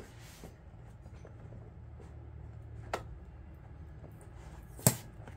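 Unboxing handling noise: two sharp clicks about two seconds apart, the second one louder, over a steady low hum.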